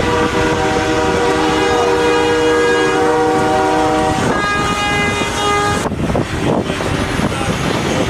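Semi-truck air horns blowing long, loud blasts, several tones sounding together as a chord: one held for about four seconds, then another for nearly two seconds, over steady traffic noise.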